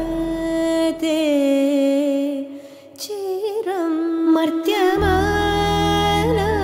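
Song with a female singer holding long notes with wavering, ornamented pitch over a soft instrumental backing. There is a short pause about three seconds in, and the deep bass comes back in about five seconds in.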